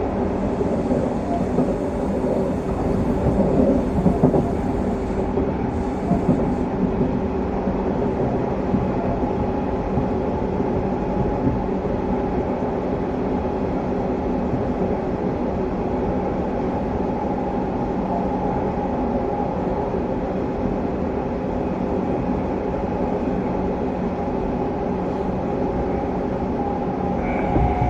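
Hanshin 1000 series electric train heard from inside its motor car while running between stations: steady rail and wheel noise under a constant hum from the traction motors.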